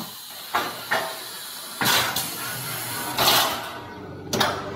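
Small auto-loading CNC woodturning lathe working through its cycle: a series of sudden mechanical clunks with short air hisses from its pneumatic cylinders, about six in under five seconds, over the machine's steady running.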